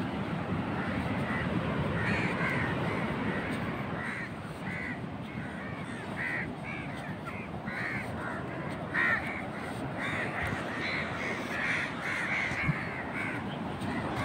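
Birds calling over and over in short, harsh calls, many birds at once, over a steady low rush of surf.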